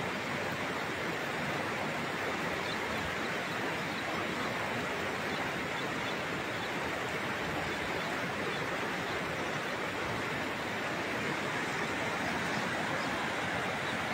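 Steady rush of a muddy river in flood, swollen by heavy rain and running high under a low bridge.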